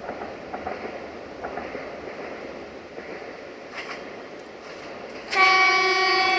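DH2 diesel railcar approaching with faint running noise. About five seconds in it sounds its horn, a loud, steady, multi-tone blast that is still going at the end.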